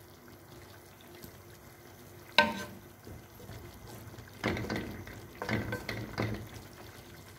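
Wooden spatula stirring chicken drumsticks in sauce in a nonstick pan, the sauce simmering with a faint bubbling. There is a sharp knock of the spatula against the pan about two and a half seconds in, and a few louder stirring strokes and sloshes later on.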